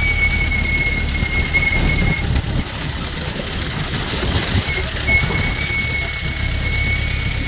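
Off-road jeep driving over a rough dirt track: a steady low engine and road rumble with the body jolting and rattling over ruts. A steady high-pitched whine runs over it, dropping out for a couple of seconds in the middle.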